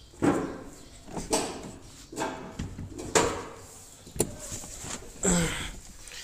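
A Volkswagen Golf 7's driver's door being opened and someone climbing into the seat: soft scuffs and rustles about once a second, with a sharp click about four seconds in.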